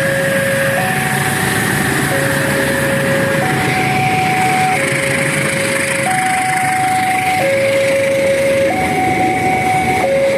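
Railway level-crossing alarm sounding a two-tone electronic warning, alternating steadily between a low and a higher tone about every 1.3 seconds, warning that a train is coming. A diesel locomotive engine runs steadily underneath.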